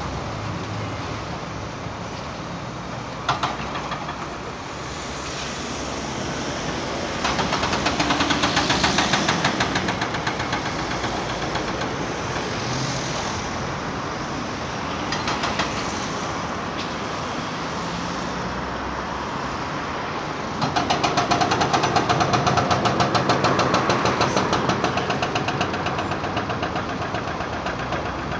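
Excavators working on demolition rubble: steady diesel machinery noise, with two stretches of rapid, rhythmic knocking, one about a quarter of the way in and a longer, louder one about three quarters of the way in.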